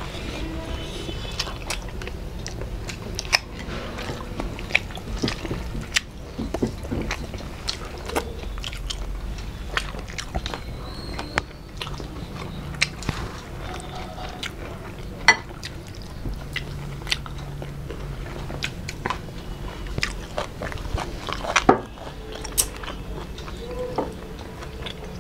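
Close-miked eating with the hands: chewing and mouth sounds, dotted with frequent sharp clicks and crunches as large fried prawns are torn apart and bitten.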